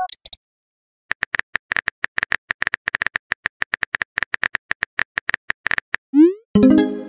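Phone keyboard tap sounds from a texting app as a message is typed: a rapid run of light clicks lasting about five seconds. Near the end comes a rising swoosh, then a chiming message tone as the text is sent.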